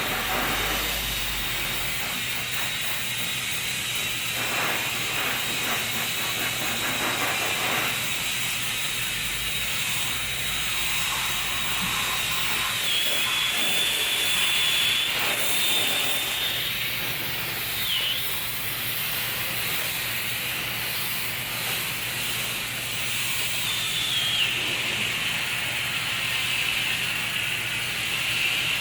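Steady hiss of water sprayed from a hose nozzle onto a retractable truck-bed tonneau cover, the spray drumming on the cover to simulate rain.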